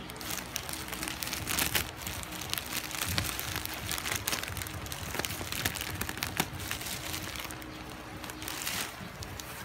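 Plastic mailer bag and bubble wrap crinkling and rustling as a parcel is handled and cut open with scissors, with many irregular sharp crackles.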